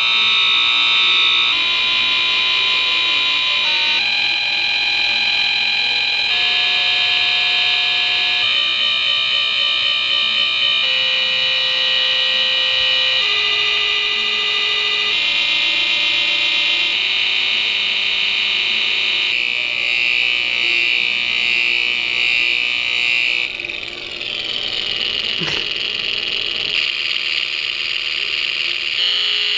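Small speaker driven by a computer's digital-to-analogue converter, giving a harsh, buzzy electronic tone that jumps to a new pitch every second or two, mostly stepping downward. A single sharp click comes about 25 seconds in.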